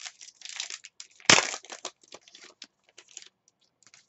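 A trading-card pack wrapper being torn open and crinkled by hand. It makes a run of crackly rustles, with the loudest tear about a second in, followed by fainter rustling.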